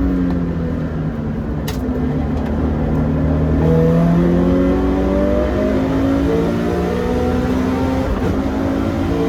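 Toyota 86 (ZN6) engine under load on a race circuit. The pitch dips briefly at the start, then climbs slowly and steadily as the car accelerates.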